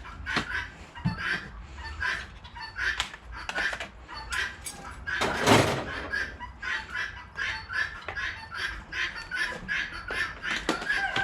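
Chickens clucking over and over in short calls, about two a second, with one louder knock about five and a half seconds in.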